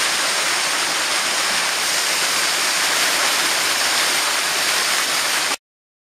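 Hill burn cascading in white water down granite rock slabs, a steady rushing that cuts off abruptly near the end.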